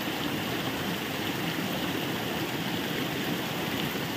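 Shallow stream rushing steadily over rocks and down a small cascade.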